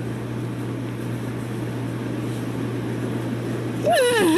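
Steady low hum of background room noise. Near the end a person's voice cuts in loudly, its pitch falling.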